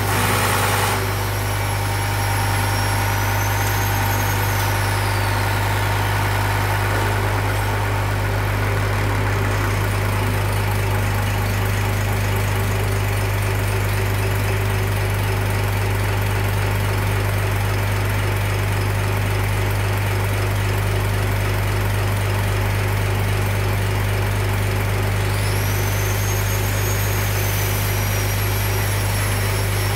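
Diesel injection pump test bench running an inline injection pump during calibration, with a loud steady mechanical hum. A high whine climbs and then falls in pitch a few seconds in, and climbs again near the end.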